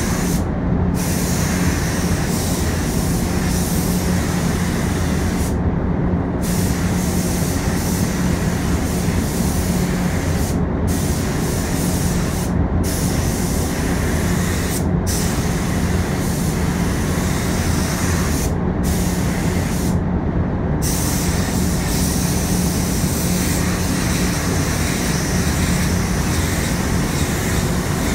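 Gravity-feed paint spray gun hissing as primer is sprayed in passes, the hiss stopping briefly about eight times as the trigger is let off between passes. A steady low hum runs underneath.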